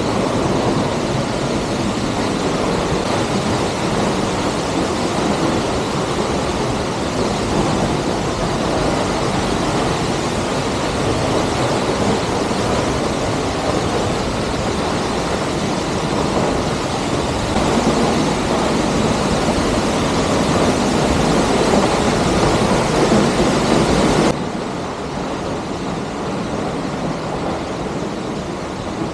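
Steady rushing of a large waterfall in full flow, an even wash of noise with no breaks. About 24 seconds in it drops suddenly to a lower level and carries on.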